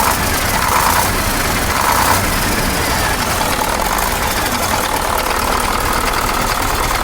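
KAMAZ 740 V8 diesel engine idling steadily after repair of the injection pump drive, which was apparently the cause of the earlier knocking. It runs quieter with no knock, and the remaining sound is the injection pump's own noise.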